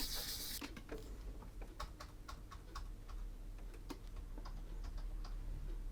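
Scattered light clicks and taps of small console parts and tools being handled on a workbench, irregular and spaced a fraction of a second apart. A brief scrubbing hiss stops about half a second in.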